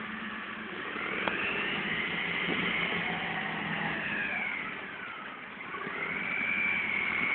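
Tractor engine working under load across soft ploughed ground, with a high whine that climbs about a second in, sinks around five seconds, then climbs again as the revs pick up.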